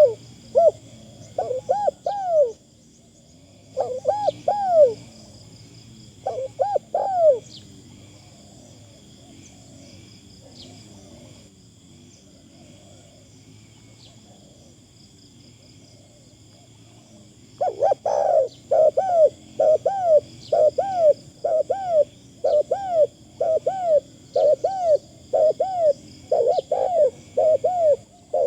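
Spotted dove cooing: short clusters of arched coos in the first seven seconds, a pause of about ten seconds, then a long steady run of coos at roughly two notes a second. A steady high-pitched drone runs underneath.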